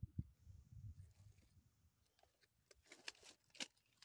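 Near silence: a faint low rumble with a soft thud near the start, then a few faint rustles and clicks as large fish are shifted about on a plastic sheet.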